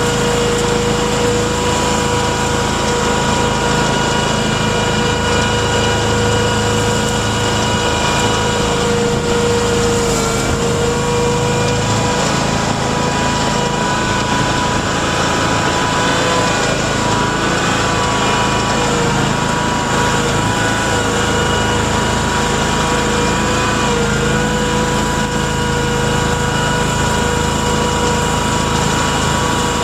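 Mudd-Ox 8x8 amphibious ATV on Adair tracks running steadily under way, heard from on board: a constant engine drone with a steady high whine over it, wavering slightly in pitch now and then.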